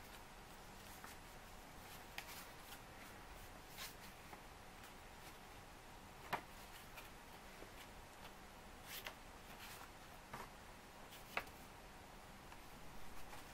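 Faint, scattered crinkles and taps of a folded printer-paper airplane being handled, a few short ones spread over the stretch, against a low steady room hiss.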